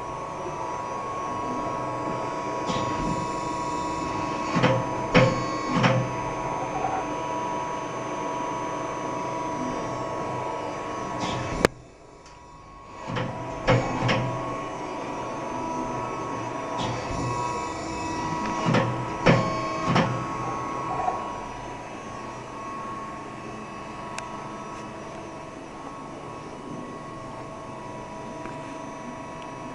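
LVD PPEB CNC hydraulic press brake running under power: a steady hum with fixed tones, and several groups of clunks as the machine cycles. About halfway through there is one sharp crack, after which the sound drops off for a second or so before the hum and clunks resume.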